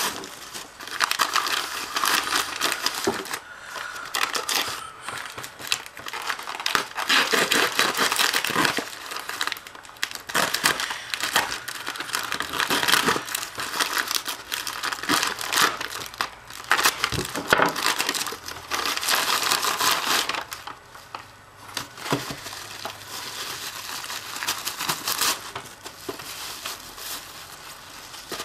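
Plastic postal mailer bag and bubble wrap handled in bursts of crinkling and rustling, with the mailer being cut open with a knife partway through. The crinkling eases off after about three quarters of the way.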